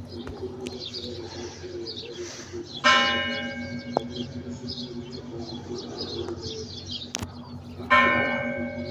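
Orthodox church bell struck twice, about five seconds apart, each stroke ringing out and slowly fading.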